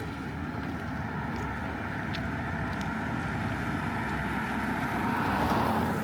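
A car passing on a wet street, its tyres hissing on the rain-soaked pavement, growing louder toward a peak near the end and then falling away.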